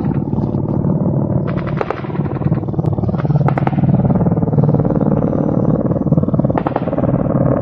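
Mi-8 transport helicopters passing low and close: a steady rotor beat over a turbine drone, growing louder over the first few seconds, with a few brief bursts of sharper blade slap.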